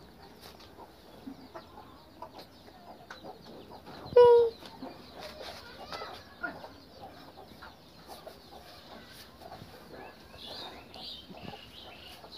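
Chickens clucking faintly in the background, with one short, loud pitched call about four seconds in.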